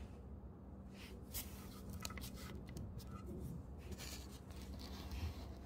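Faint room tone: a steady low hum with a few soft clicks and rustles scattered through it.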